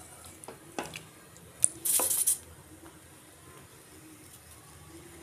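Cooked rice being spooned onto a plate: a few light clicks of the spoon against the plate, then a short scrape about two seconds in.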